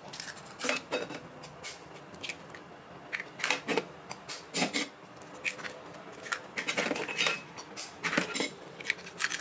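Eggshells tapped open with a metal spoon, with sharp irregular clicks and cracks of spoon on shell, and empty shells clinking into a stainless steel bowl.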